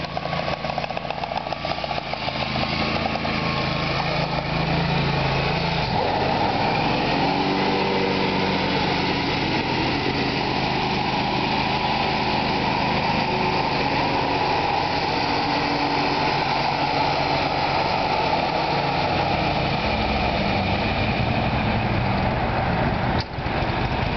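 Scag Sabertooth Tiger zero-turn mower's 25-horsepower Kohler gas engine running as the mower is driven, the engine note rising and getting louder about five seconds in and then holding steady.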